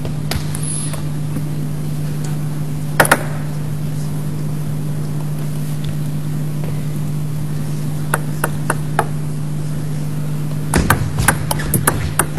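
Table tennis ball clicking sharply off bats and table in a quick series of taps near the end, after a single louder knock about three seconds in, over a steady low electrical hum.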